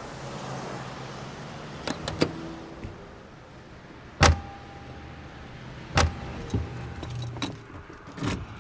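Doors of an old Volkswagen Beetle being handled and shut as two people climb in: light clicks about two seconds in, then two loud slams about four and six seconds in.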